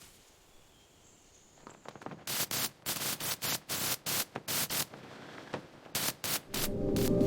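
A run of short, hissing strokes, about three a second, starting about two seconds in after near silence, with a brief pause before the last few. Music comes in near the end.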